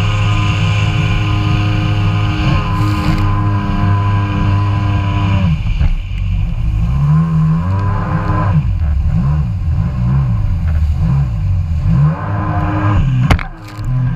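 Kawasaki Ultra 150 jet ski's two-stroke three-cylinder engine running at a steady high throttle. About five and a half seconds in, its pitch drops and then wavers up and down as the throttle changes. Near the end there are sharp splashes and knocks of water against the hull.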